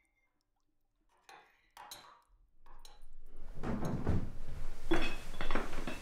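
Dishes and cutlery clinking and clattering. It starts faintly after a second of silence and gets busier and louder from about halfway through.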